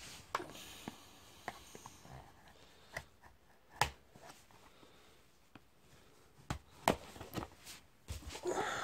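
Hands handling and turning over a sealed cardboard card box: scattered light taps and clicks of fingers and box edges, with soft rubbing of cardboard against skin.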